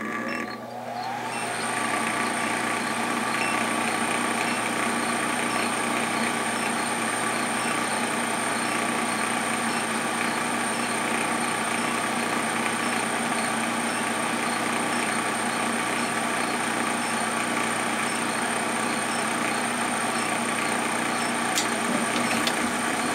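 Trane gas furnace's draft inducer motor spinning up with a short rising whine as the furnace starts a call for heat, then running steadily with a high whine over the blower noise. A single sharp click sounds near the end.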